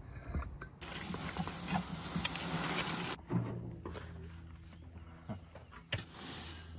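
Gravel tipped out of a wheelbarrow into a foundation trench: a loud rushing rattle of stones that cuts off about three seconds in, then a rake scraping through the loose gravel near the end. A low steady hum runs underneath.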